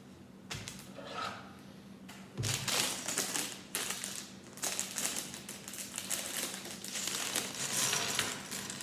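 Plastic Lego parts bags crinkling and rustling as they are handled, in irregular crackly bursts that begin about two seconds in and go on through the rest.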